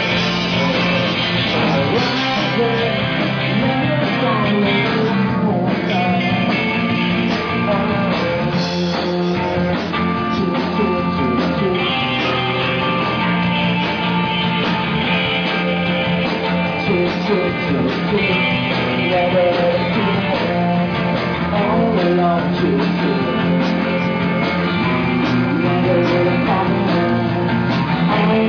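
Live rock band playing a song, with guitar prominent over a steady bass. The music is loud and continuous.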